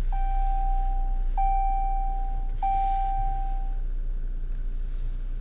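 Jeep Cherokee's dashboard warning chime: a steady electronic tone that sounds three times, about one and a quarter seconds apart, each starting with a click, and stops about four seconds in. A low steady hum runs underneath.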